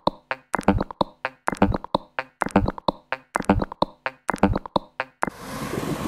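A dry drum beat: sharp hits, some with a low boom, several a second with dead silence between them. It cuts off suddenly about five seconds in, giving way to a steady rush of wind noise on the microphone.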